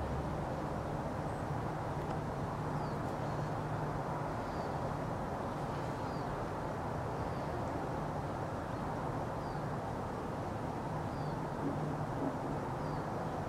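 Steady low rumble of distant traffic, with a small bird giving short, high chirps about every second and a half.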